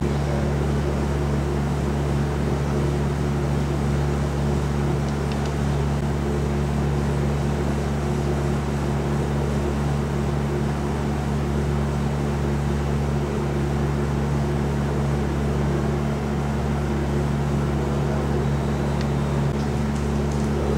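A steady, loud, machine-like hum with several fixed low tones that never change pitch. It starts suddenly at a cut and runs on unchanged.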